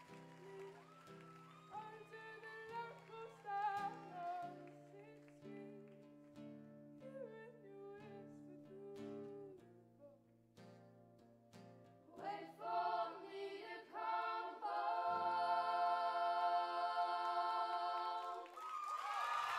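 Acoustic guitar and soft singing, then about twelve seconds in the youth glee club comes in together, louder, and holds a final chord for a few seconds before it stops. Applause starts right at the end.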